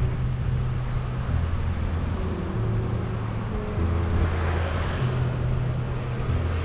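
Background electronic music: held low synth notes that step to a new pitch every second or so, over a soft wash of sound that swells in the middle.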